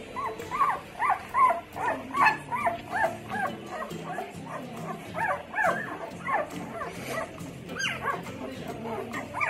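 Newborn St Bernard puppies squeaking and whimpering in short, high, rising-and-falling cries, two or three a second, with a lull about four seconds in. Music plays underneath.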